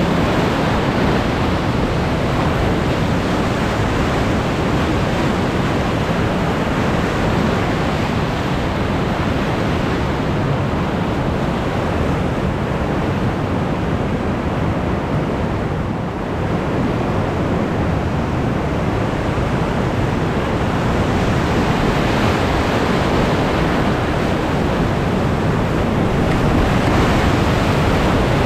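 Loud, steady rush of whitewater rapids churning around a rowed cataraft, growing a little louder near the end.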